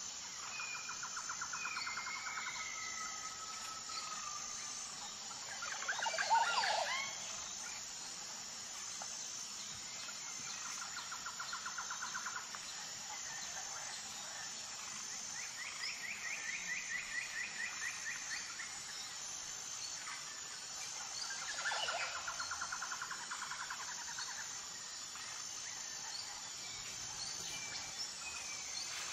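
Birds calling over a steady high insect-like drone. Fast trills repeat every few seconds, with louder, sharper calls about six seconds in and again about twenty-two seconds in.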